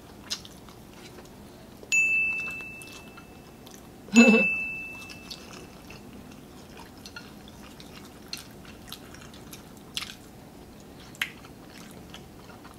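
Metal cutlery striking ceramic tableware twice, about two seconds apart, each strike giving a single high ringing note that dies away over about a second, among faint clicks of utensils and chewing.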